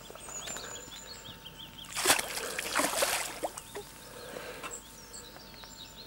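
Hooked common carp thrashing at the surface during the fight, splashing the water twice, about two and three seconds in.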